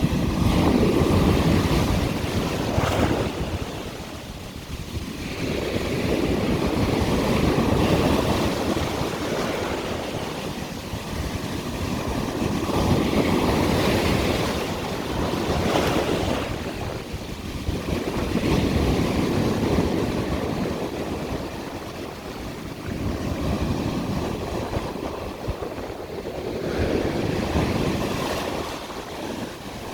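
Ocean waves breaking and washing up the beach, the rushing surf swelling and falling back about every five to six seconds.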